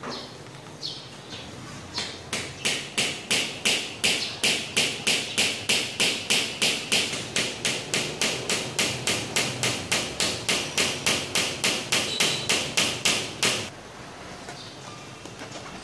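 Hammering on a metal pin set into a small wooden block: a few scattered blows, then a steady run of sharp strikes at about three a second that stops about two seconds before the end.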